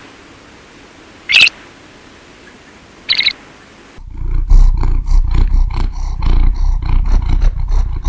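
Two short, sharp, high animal calls, then from about four seconds in a large animal's loud, deep, rumbling growl made of many quick pulses.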